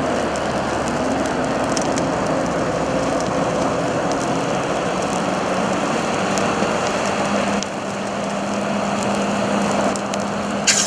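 Semi-trailer tires and wheel assemblies burning, a steady rushing noise with scattered crackles and pops and one sharp pop near the end. A steady low hum comes in about two-thirds of the way through.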